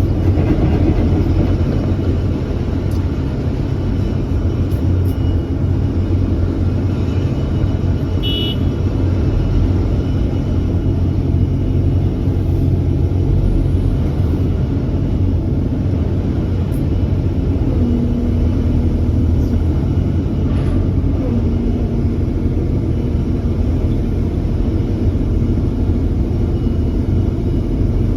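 Komatsu PC350-8LC excavator's diesel engine running steadily, a continuous low rumble, with brief steady tones rising over it now and then.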